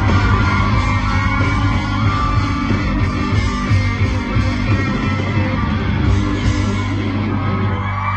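Live rock band playing loud, with electric guitar and bass guitar.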